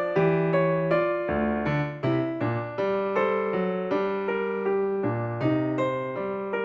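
Background music: a keyboard piano playing a melody of short, evenly paced notes over a lower accompaniment.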